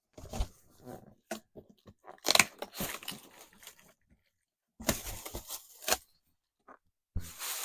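Cardboard shipping box being torn open and handled during unboxing, tearing and crunching in several short bursts.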